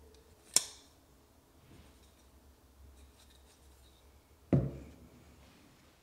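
QSP Swordfish folding knife: a sharp metallic click as the blade snaps shut about half a second in, then a louder, duller knock about four and a half seconds in.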